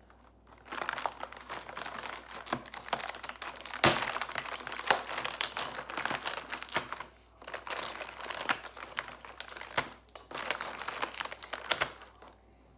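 Crinkling and rustling as hands pick through a cardboard advent calendar, working open a window and handling what is inside, in several bouts with a sharp snap about four seconds in.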